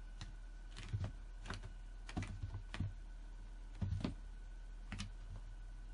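A cat's paws and claws tapping and knocking on the floor as it pounces on and bats at a laser-pointer dot: a string of irregular light taps, loudest about a second in and again around four seconds in.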